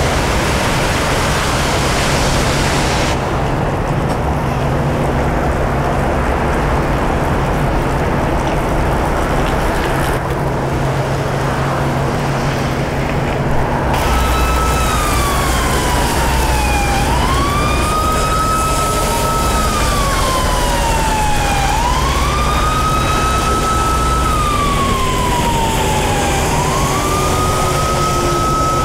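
Freeway traffic in heavy rain, a steady hiss of tyres and spray on the flooded road with a low engine rumble, breaking off abruptly a few times. About halfway through, an emergency vehicle's siren starts a slow wail, falling and rising again about every four to five seconds over the traffic.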